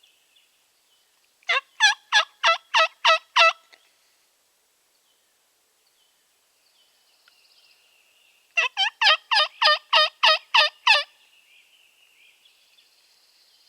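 Turkey yelping: two loud runs of evenly spaced yelps, about seven notes a little over a second in, then about nine more near the end, over faint background birdsong.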